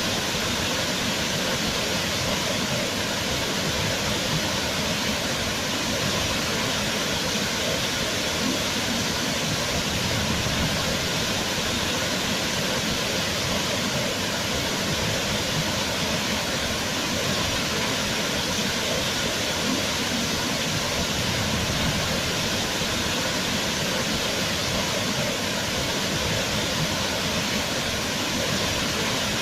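Waterfall rushing: a steady, dense roar of falling water with no change in level.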